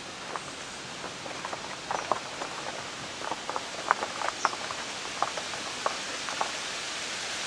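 A steady outdoor rushing hiss with irregular light clicks and taps scattered through it. The clicks are thickest in the middle, and the sharpest comes about four seconds in.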